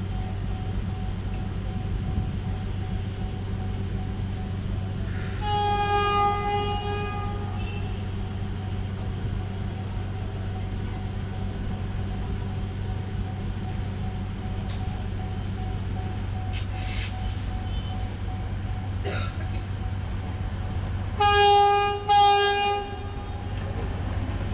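Class S13 diesel multiple unit sounding its horn as it approaches: one long blast about five seconds in, then two short blasts near the end. Under the horn runs the steady low hum of an idling diesel train close by.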